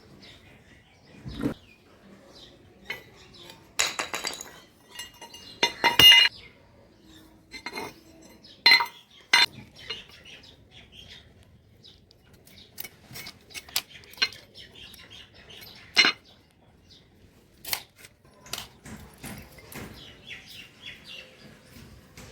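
Metal parts and tools being handled and set down on a work surface: scattered clinks and clanks at irregular moments, a few of them ringing briefly, the loudest about four and six seconds in.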